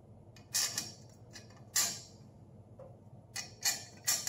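Small metal screws clinking and tapping against a hoverkart's metal front-end frame as they are fitted through its mounting holes by hand: about six sharp, irregular metallic clinks.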